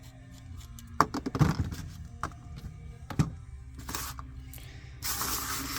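A few sharp knocks and clicks of metal parts and tools being handled, then, from about five seconds in, a steady spraying hiss.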